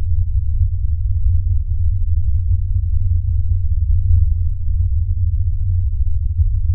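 Deep, steady bass drone of sound design on a film soundtrack, with nothing above a low rumble.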